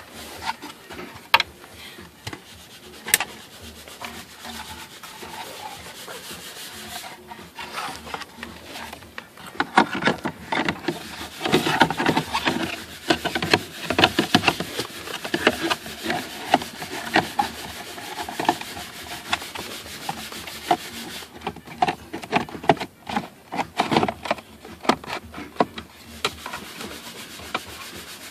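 Plastic air-vent duct and interior trim being worked into place by hand: irregular rubbing and scraping of plastic on plastic, with scattered clicks and knocks.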